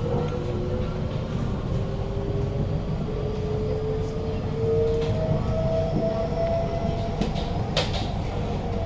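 Traction motors of a Kawasaki-CRRC Sifang C151A metro train humming as it accelerates, their tones climbing steadily in pitch over the rumble of the running train. This car's motors give a deeper hum than usual at higher speed. A brief sharp knock comes near the end.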